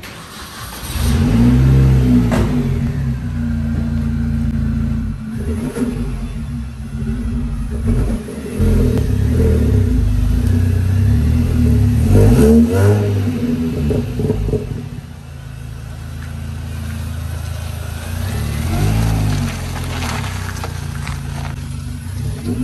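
2006 Mini Cooper S (R53) supercharged four-cylinder engine accelerating and revving as the car is driven, its pitch rising and falling several times, loudest about two seconds in and again about twelve seconds in. The engine has a freshly upgraded MSD ignition.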